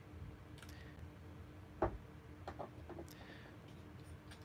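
A few light clicks and taps of plastic fountain pen caps being pushed onto the back ends of the barrels (posted) as the pens are handled, the sharpest click just under two seconds in.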